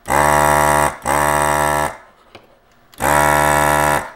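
Electric desoldering gun's vacuum pump buzzing in three bursts of about a second each, the last after a short pause, as it sucks solder from the leads of a failed capacitor on the power supply board.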